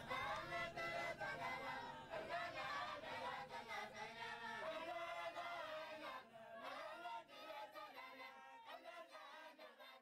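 Chorus of voices chanting a Muslim devotional song of praise, the parts overlapping in harmony, gradually fading out.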